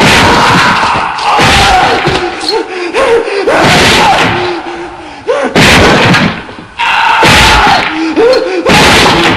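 A young man screaming and groaning in agony in repeated loud bursts, a cartoon voice in pain, over heavy crashing sound effects.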